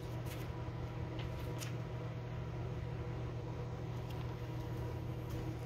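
Steady low hum of room noise, with a few faint rustles of a paperback picture book's pages being handled.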